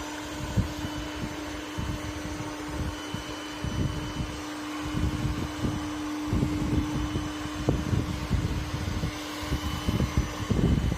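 Bardi robot vacuum cleaner running: a steady motor hum with irregular low knocking and rumbling. The hum stops near the end.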